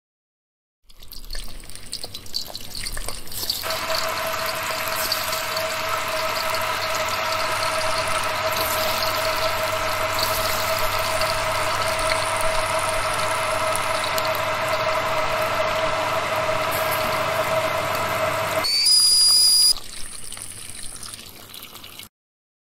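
Simulated stovetop kettle heating on the hob: a steady rushing noise with a faint hum in it, building over the first few seconds. Near the end a short, loud, high whistle rises slightly and holds for about a second, the kettle coming to the boil. A fainter noise then trails off and stops.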